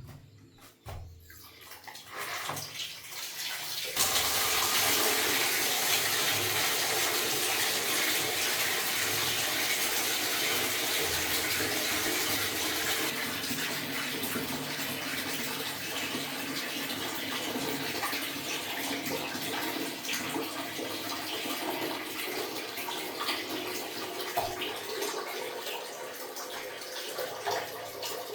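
Water starts gushing abruptly about four seconds in, then keeps running steadily, easing slightly toward the end.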